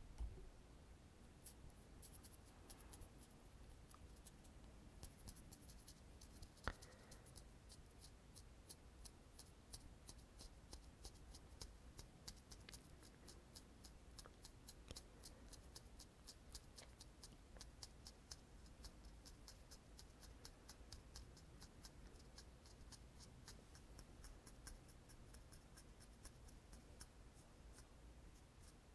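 Quiet, light scratchy strokes of a makeup tool worked close to the microphone, about three or four a second, with one sharper click about seven seconds in.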